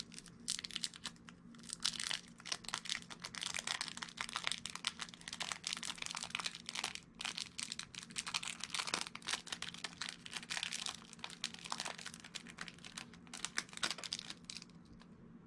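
Close-up crinkling and rustling handling noise, a dense run of small clicks and scratches from fingers working small parts. It stops about a second before the end.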